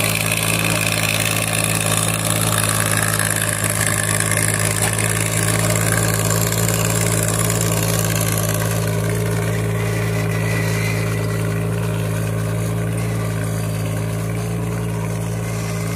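Sonalika mini tractor's diesel engine running at a steady, constant speed under load as it pulls a seed planter. The note holds even throughout.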